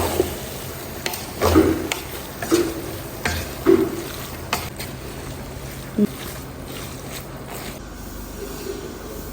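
A spoon scraping and knocking in a pan as fried rice and vegetables are stirred together, over a steady hiss of frying. The stirring strokes come irregularly through the first six seconds, then ease off.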